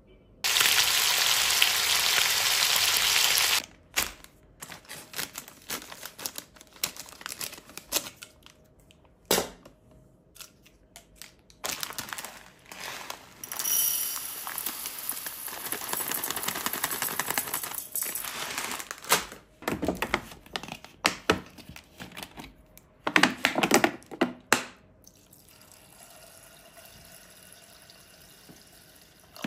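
Dry buckwheat rattling into a stainless steel pot as it is poured from a plastic bag, with crinkling of the bag and scattered clicks and knocks; near the end, water poured from a plastic bottle onto the grain in the pot. A loud steady hiss lasting about three seconds opens the sequence.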